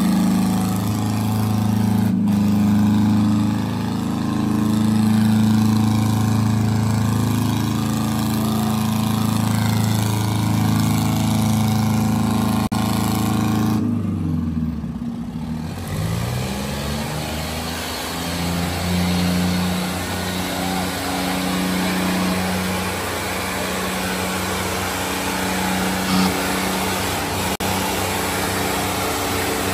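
Diesel tractor engines running hard under heavy load in a tractor tug-of-war. About fourteen seconds in, the engine note falls sharply, then rises and settles again.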